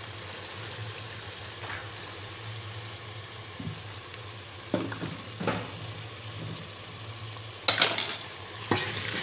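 Tomato-and-spice masala sizzling in hot oil in a metal pot while a steel ladle stirs it, with a few ladle clinks and scrapes against the pot, the loudest near the end.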